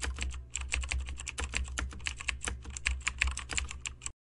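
Keyboard typing sound effect: a fast run of key clicks with a brief pause about half a second in, cutting off suddenly near the end as the typed-on text finishes.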